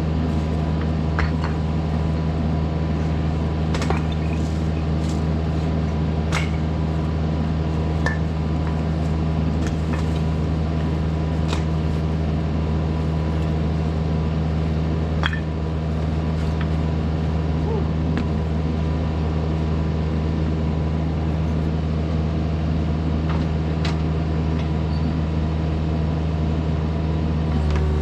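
Kubota mini excavator's diesel engine running at a steady throttle, with scattered short clinks and clanks over it.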